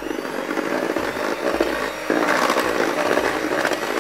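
Electric hand mixer running, its twin beaters whirring through thick cake batter in a stainless steel bowl. It gets louder about two seconds in.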